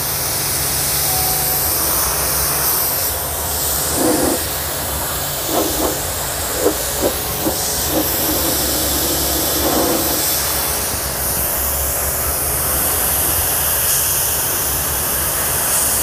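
STARQ ST W4 PRO electric high-pressure washer running, its water jet spraying against a car's window and door panel with a steady hiss over the low hum of the washer's motor and pump.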